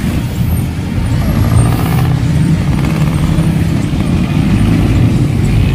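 Motor vehicle engine running close by amid street traffic, a loud steady low hum.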